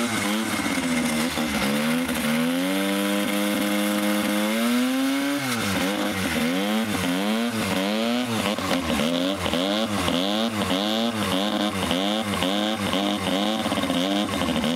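Racing kart's two-stroke engine running on its stand, being warmed up from a cold start with the throttle worked by hand at the carburettor. The revs rise about two seconds in and are held high, drop back, then are blipped up and down about one and a half times a second.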